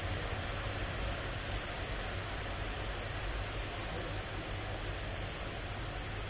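Steady rain, an even rushing hiss with a low rumble underneath.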